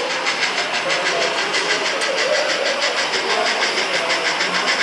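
O-scale (1/43) model steam train running slowly, with a steady, even beat of about six a second.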